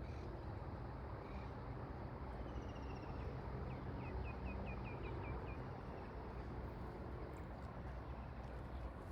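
A small songbird giving a quick run of about eight short chirps a few seconds in, over a steady low outdoor rumble.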